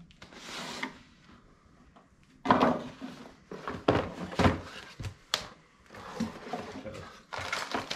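A cardboard box and the parts inside it being handled and opened on a workbench: rustling and sliding, with several knocks and thumps, the loudest about two and a half seconds in.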